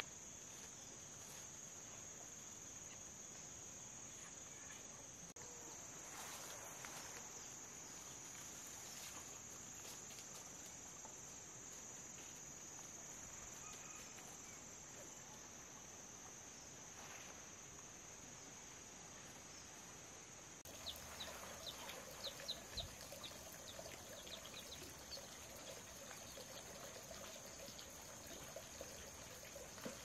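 Insects chirring outdoors in a steady, high-pitched drone. About two-thirds of the way through, faint irregular clicks and taps join in.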